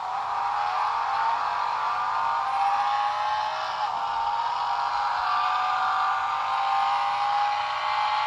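Car engine sound, thin with hardly any low end, rising slowly and steadily in pitch.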